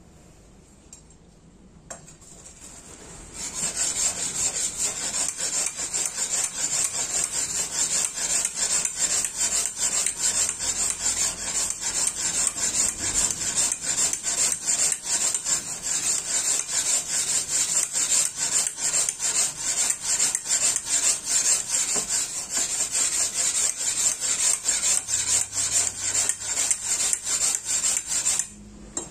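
Steel tanto blade being hand-sharpened on a wet whetstone: a rapid, even back-and-forth rasping hiss that starts about three seconds in and stops just before the end.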